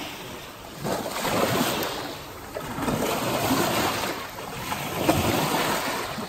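Small waves washing in over muddy river shallows, rising and falling about every two seconds, with water sloshing and splashing around a child lying in it.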